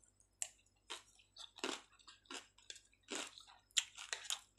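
Close-up chewing of a mouthful of chicken and potato: short, irregular mouth noises about one to two a second.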